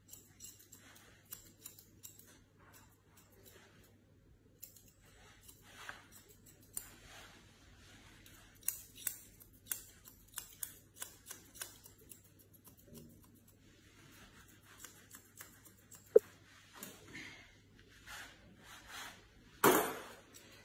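Grooming scissors snipping through a Shih Tzu's hair around the face and ear in quick, irregular, quiet cuts, with one sharper click late on.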